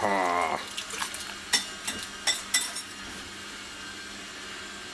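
A utensil clinking and scraping against a bowl while an egg and cream mixture is stirred together: a string of sharp clinks over the first three seconds, then only faint room hum.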